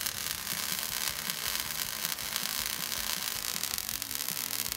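Millermatic 211 MIG welder's arc running on steel, a steady hissing crackle as the bead is laid.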